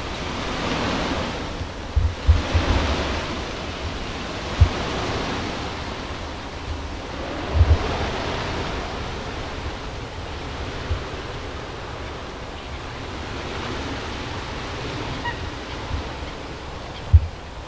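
Rushing whoosh of a huge flock of common starlings' wings as the murmuration sweeps and turns overhead, swelling and fading in waves like surf. Short low thumps of wind buffeting the microphone come every few seconds.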